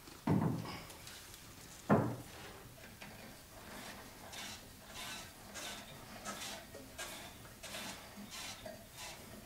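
Two sharp metal knocks about one and a half seconds apart, then a run of small, fainter clicks and rattles, as hands work at the headstock and chuck of a wood lathe.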